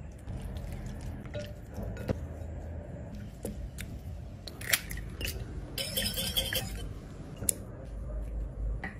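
Kitchen handling sounds of marinating chicken: scattered sharp clicks and taps of utensils against a bowl, with a short rough scraping noise a little past halfway, over a low steady rumble.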